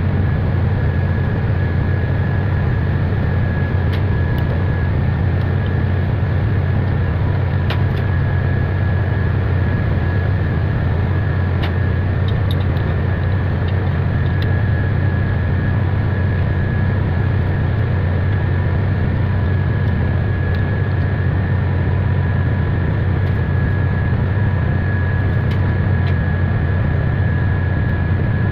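Diesel engine running steadily at a constant speed, a continuous low hum with a faint steady whine above it.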